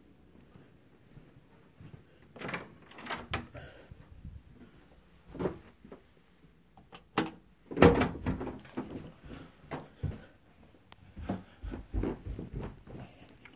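A door being handled: irregular clicks, knocks and thumps, the loudest about eight seconds in.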